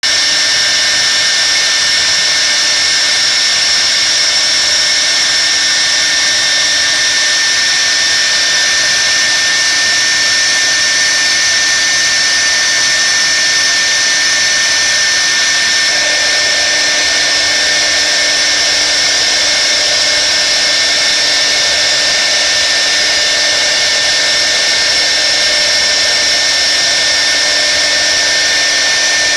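CNC router spindle running at speed and carving a relief into particleboard: a steady whine with a constant tone over cutting hiss. A lower tone joins about halfway through.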